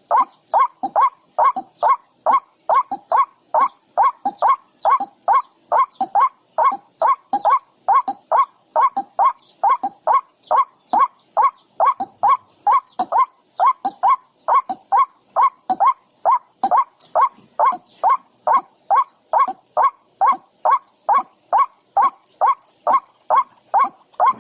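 A bird calling over and over in short, evenly spaced calls, about two a second.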